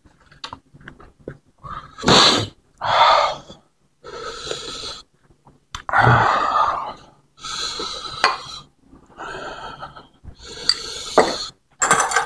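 A man huffing hard breaths in and out through his mouth about seven times, the spicy-food heat reaction of someone eating spicy bakso. There are a few faint clicks of tableware, most near the end.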